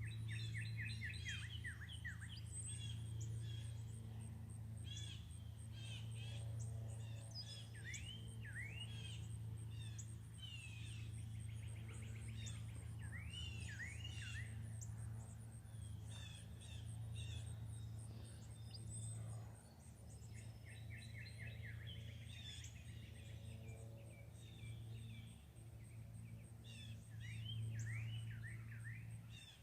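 Several small songbirds chirping and twittering in quick, overlapping calls, with a steady low hum underneath.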